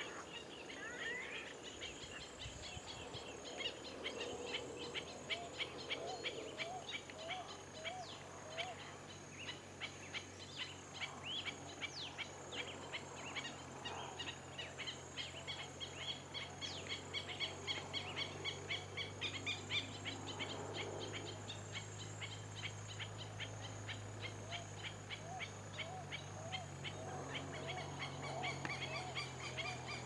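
Several wild birds calling and singing together: a fast, continuous run of high chirps, with series of short rising notes lower down near the start and again near the end. A low steady hum runs underneath, stronger in the second half.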